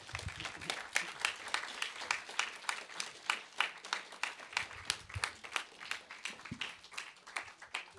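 Applause from a small audience, with individual hand claps heard separately, dying away near the end.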